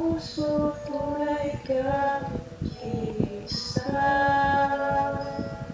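A woman singing a slow melody in held notes, with a long note held near the end.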